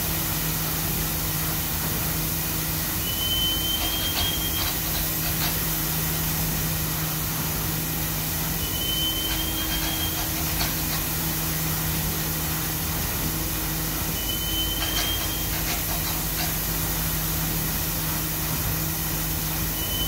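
Wheat pouring in a steady rushing stream from a tipping trailer through the grate into a silo receiving pit, over a steady low machine hum. A short, high, rising squeak comes about every six seconds.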